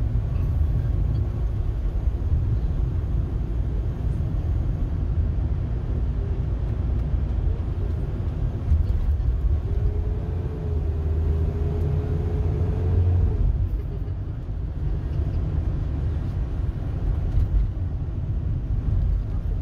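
Road noise inside a moving car's cabin: a steady low rumble of engine and tyres, with a faint steady whine for a few seconds about halfway through.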